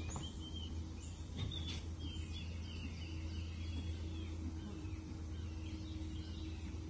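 Birds chirping repeatedly in short calls over a steady low hum.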